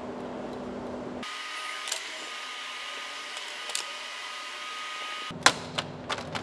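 A few sharp plastic clicks from the radiator trim panel's push clips being pried out with a Phillips screwdriver and the panel being lifted off. The loudest click comes about five and a half seconds in, over a steady background hum.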